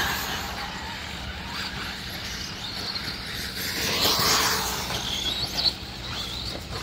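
Electric 1/8-scale RC buggies running on a dirt track: a faint motor and tyre whine over a steady outdoor rush, swelling about four seconds in.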